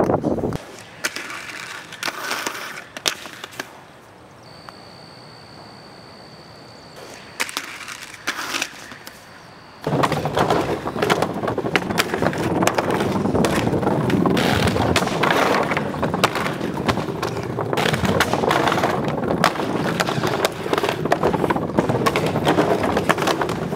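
Inline skate wheels rolling on pavement and wooden decking, with sharp knocks of landings and impacts on wood. For about the first ten seconds there are only a few scattered knocks; then a loud continuous rolling with many knocks sets in.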